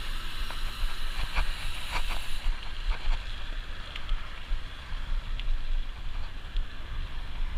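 Wind rumbling on the microphone during a mountain-bike ride, with scattered light clicks and rattles from the bike.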